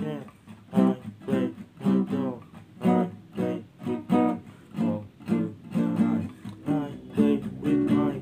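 A man singing while strumming chords on a nylon-string classical guitar, with strums about once a second.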